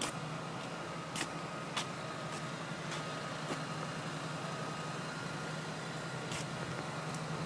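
A steady low engine hum, with a few sharp ticks scattered through it.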